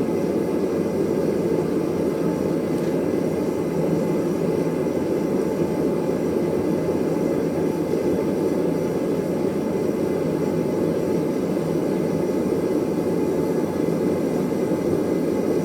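Forge running with a steady rushing roar, unchanging throughout, as the anvil is heated for its quench.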